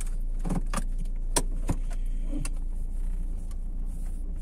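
Steady low drone of a Ford Focus hatchback running, heard from inside the cabin, with a handful of sharp clicks and knocks in the first two and a half seconds.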